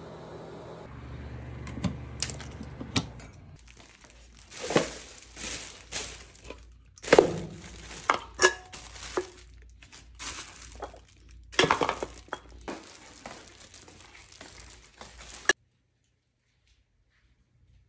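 Plastic bags crinkling, with irregular knocks and short clinks as things are moved about in a cabinet holding cleaning supplies. The sound cuts off suddenly near the end.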